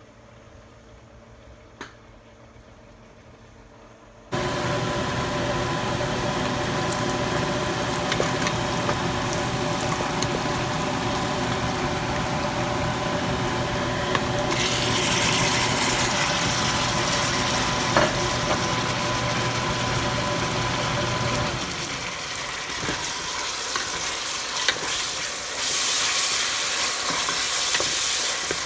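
Quiet for the first few seconds, then food sizzling as it fries in a pan, with scattered scrapes and clicks of stirring. A steady hum runs under it and stops about three-quarters of the way through.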